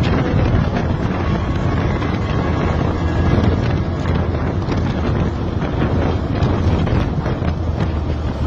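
Wind buffeting the microphone while riding in the open back of a moving vehicle, over a steady low rumble of road and engine.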